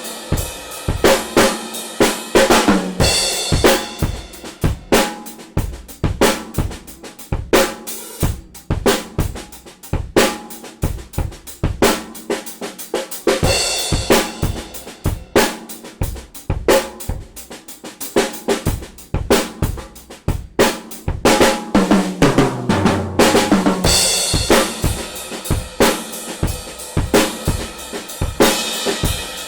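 Mapex Storm drum kit played in a steady groove of bass drum, snare and hi-hat, with fills running down the toms into cymbal crashes about three, fourteen and twenty-four seconds in.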